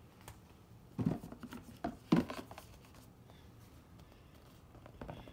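Cardboard game boards being handled and lifted out of a box: a few short, soft knocks and scrapes, the two loudest about one and two seconds in.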